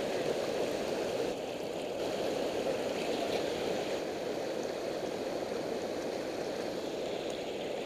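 Steady rush of river water pouring over a low dam spillway and churning below it.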